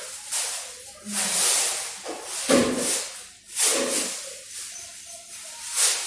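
Cat hissing in short, repeated bursts, about one a second.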